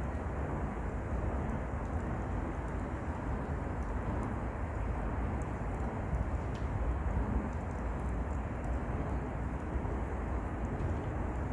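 Wood fire burning in a mesh fire pit, a few faint crackles over a steady low rumble.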